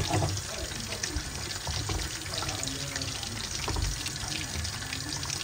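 Soup with egg and corn bubbling at a simmer in a pot while a wooden spoon stirs it, just after cornflour slurry has gone in to thicken it. Steady watery bubbling with many small ticks.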